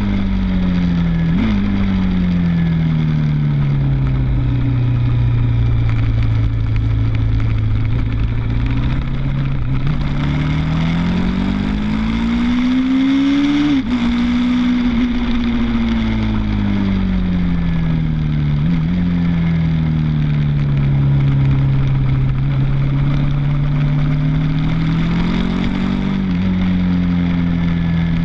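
Suzuki TL1000 V-twin motorcycle engine heard onboard on a track lap, with wind rushing over the microphone. The revs fall and hold low through a bend, climb hard to a gear change about 14 seconds in, fall again with a short blip of the throttle, then rise once more near the end.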